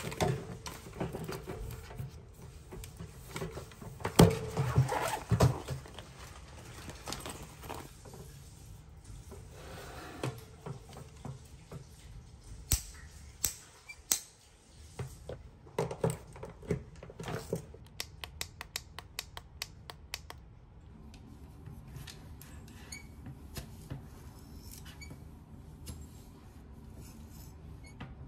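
A curling iron being handled at a wire basket: knocks and clicks of plastic and metal, rustling of the tool pouches and cord, loudest about four to six seconds in. About eighteen seconds in there is a quick run of crackling clicks, then softer handling.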